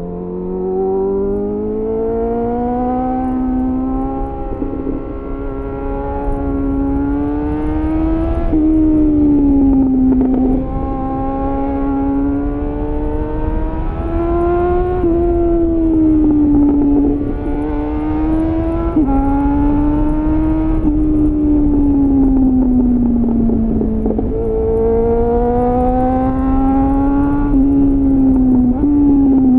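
2001 Suzuki GSF 600 Bandit's inline-four engine heard from onboard through a clone SC-Project CR-T exhaust with a home-made dB killer. The revs climb, drop sharply and climb again about half a dozen times, the rider opening and closing the throttle through tight bends.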